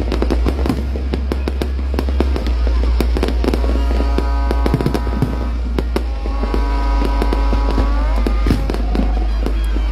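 Aerial fireworks bursting and crackling in rapid succession over a deep, steady rumble, with music playing alongside; sustained chords come in about four seconds in and rise near eight seconds.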